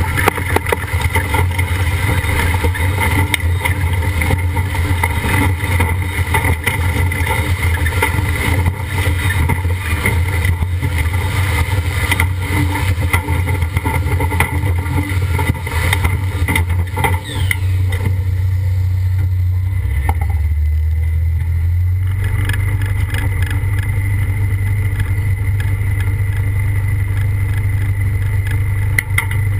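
Steyr pulling tractor's diesel engine running hard under full load as it drags the pulling sled. Past the middle the load comes off and the engine settles to a lower, steady run.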